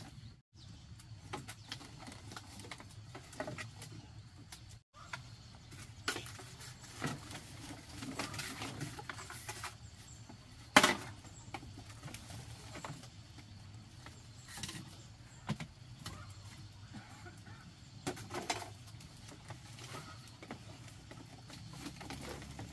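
Scattered small clicks, taps and knocks from tending an open wood cooking fire and handling firewood and pots, with one sharp loud knock about halfway through.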